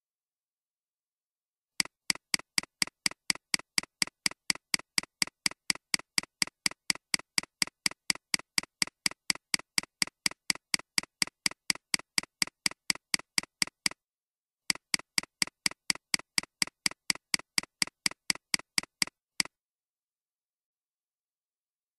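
Computer mouse clicks in a rapid, even run of about five a second, with a short break about two-thirds through. They stop a couple of seconds before the end, with dead silence between and around them.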